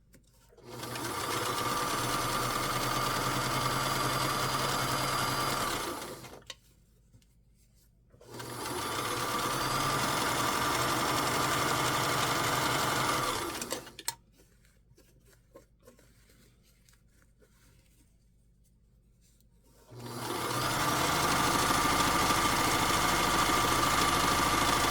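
Vintage Kenmore sewing machine running at steady speed while topstitching canvas straps, in three runs of about five seconds each with pauses between. Each run carries a steady motor whine.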